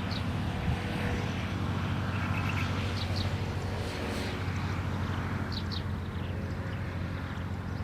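A small bird giving short, high chirps, mostly in quick pairs every few seconds, with one brief trill, over a steady low rumble.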